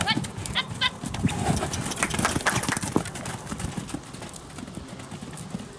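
Hoofbeats of a mare and her foal trotting loose on a sand arena, an irregular run of strokes that grows quieter after about four seconds.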